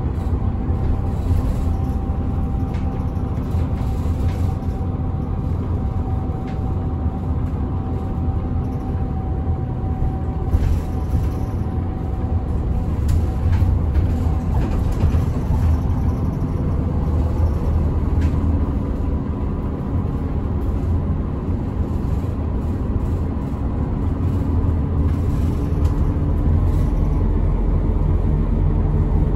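Route bus driving, heard from inside the passenger cabin: a steady low engine drone with road noise. A thin whine fades out about halfway through, and the engine note rises a little later on.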